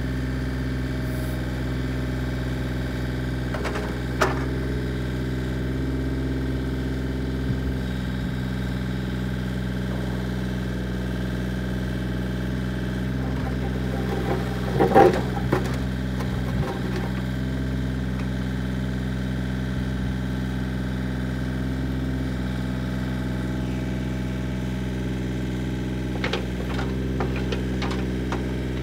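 Komatsu mini excavator's diesel engine running steadily as the boom, arm and blade are worked, with short metallic knocks about four seconds in, a louder cluster midway, and a few more near the end.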